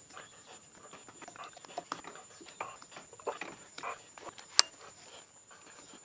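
Die cutting a 5BA thread on a small high-tensile steel valve stem, turned by hand in a lathe die holder: irregular small scrapes, creaks and clicks, with one sharp click about four and a half seconds in.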